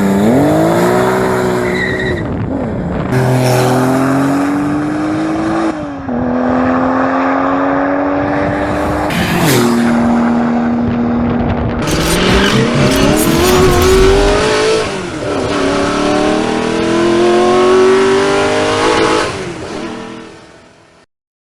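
Tuned Porsche 996 Turbo's twin-turbo flat-six under hard acceleration, its note climbing through each gear and dropping back at every upshift, four or five shifts in all. The sound fades out near the end.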